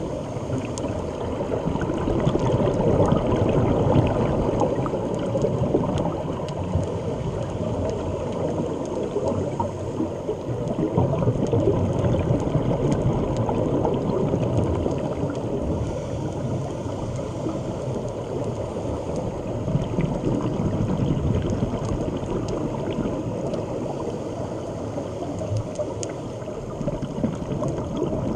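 Underwater sound on a scuba dive: a steady low rushing and bubbling of water, with faint scattered clicks. It swells and eases about every eight or nine seconds, in step with a diver's regulator breathing and exhaust bubbles.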